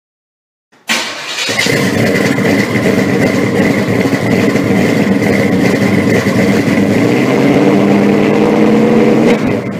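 A loud engine running, cutting in suddenly about a second in and holding a steady note with a thin, steady whine above it, then fading out at the end.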